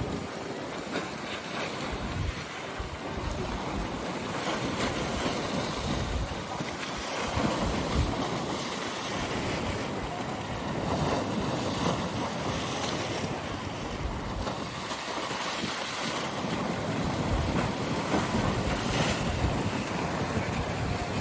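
Wind-driven waves breaking and washing in continuously, with strong wind gusting and buffeting the microphone in low, uneven rumbles.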